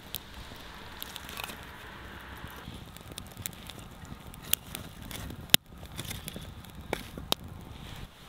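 Small wood fire of birch logs and split kindling crackling in a stone fire pit. Scattered sharp pops and knocks run through it, probably from logs being laid on. One sharp pop a little past halfway is the loudest.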